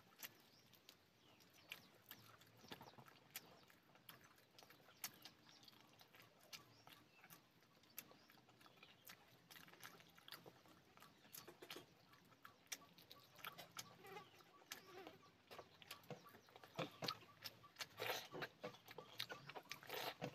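Close-up eating sounds of a person eating chicken and rice by hand: scattered wet chewing and lip-smacking clicks, busier and louder in the last few seconds.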